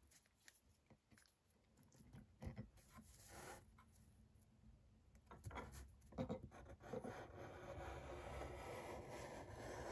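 Felt tip of a Sharpie permanent marker drawn across paper: faint scratchy strokes, a short one about three seconds in and a longer, steadier one over the last few seconds.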